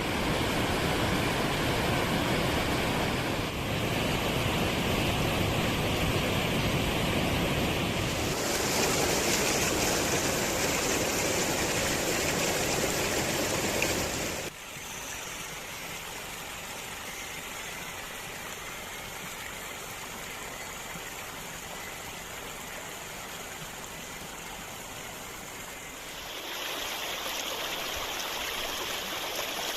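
Rushing stream water flowing steadily. The sound shifts abruptly several times: it drops in level and loses its deep rumble about halfway through, then grows brighter again near the end.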